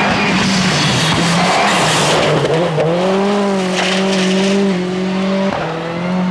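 Peugeot 206 WRC rally car's turbocharged four-cylinder engine running hard as the car slides by on gravel, with stones and tyres hissing loudly for the first two seconds or so. The engine note then climbs a little and holds steady as the car pulls away, with a brief dip near the end.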